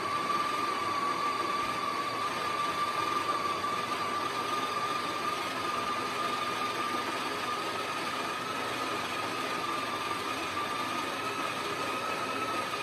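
An espresso machine's built-in coffee grinder running steadily, grinding a double dose of beans into the portafilter basket: a constant motor whine over the grinding noise.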